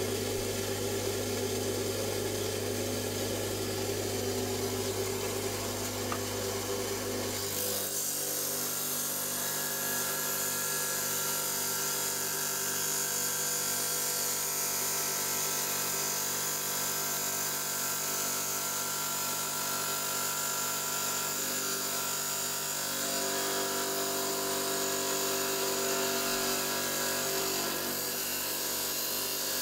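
Electric stone saw running steadily while cutting through an agate nodule. Its sound changes abruptly about eight seconds in, with the low hum dropping away and a higher hiss taking over.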